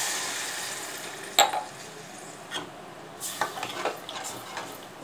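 Water poured into hot oil and masala in a metal kadai sizzles, the hiss dying away over the first second or so. Then a metal spoon stirs the curry, clinking and scraping against the pan several times, with one sharper clink about a second and a half in.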